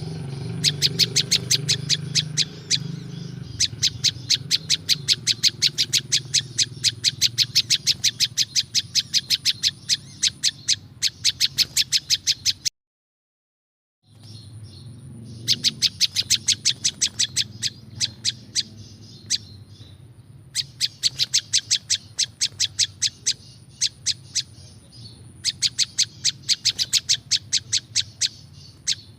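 Prenjak lumut bird calling: a fast, rhythmic string of sharp, high chirps, about five a second, in long runs with short breaks. About halfway through, the sound cuts out completely for about a second, then the chirping picks up again.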